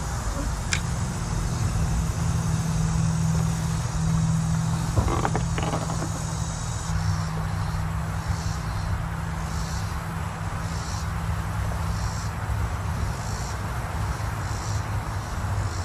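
Steady drone of highway traffic: a continuous low hum with a wash of tyre and engine noise. A few light clicks come about five seconds in.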